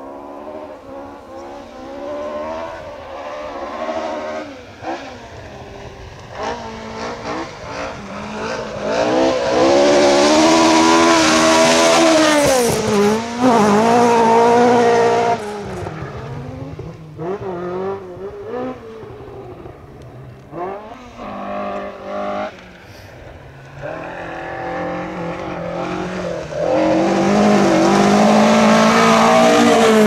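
Historic rally cars at full speed on a stage, one after another. An engine revs hard through its gears and passes loudest about a third of the way in, then fades. A second car's engine climbs in pitch and grows louder as it approaches and passes close near the end.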